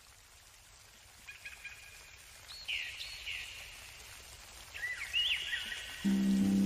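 Bird calls: a few short whistled chirps that sweep down and then hold, a second or two apart, over a faint background hiss. Music with held chords comes in near the end.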